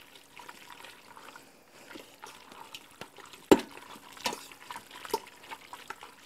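Shredded chicken being stirred with barbecue sauce in an Instant Pot's inner pot: quiet wet squelching, with a few sharp taps of the utensil against the pot, the loudest about three and a half seconds in.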